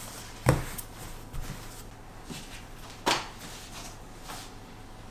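Wooden rolling pin knocking against a wooden pastry board while dough is rolled out, four short knocks, the loudest about half a second in and about three seconds in.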